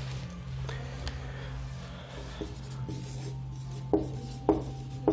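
Whiteboard being wiped with an eraser, then a marker writing on it in a few short, sharp strokes near the end, over a steady low hum.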